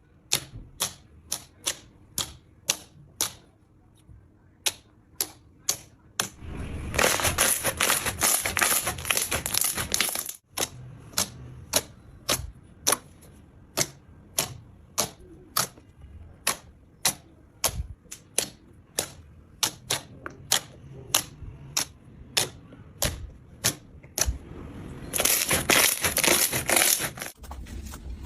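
Slime being poked and squeezed by hand, with sharp popping clicks about twice a second. Twice the clicks give way to a few seconds of dense crackling as the slime is worked faster.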